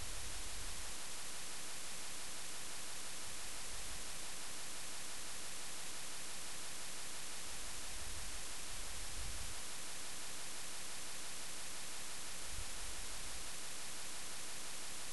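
Steady hiss of the recording's microphone noise, with a few faint low thuds.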